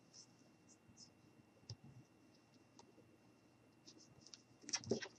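Near silence broken by a few faint, scattered clicks and light handling noise from hands pressing felt onto a paper cone.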